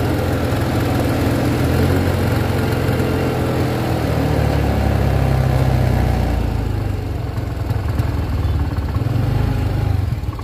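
Engine of a Honda Scoopy scooter, a small single-cylinder four-stroke, running with its pitch wavering a little. The scooter has a fault: it sputters when the throttle is first opened and can stall.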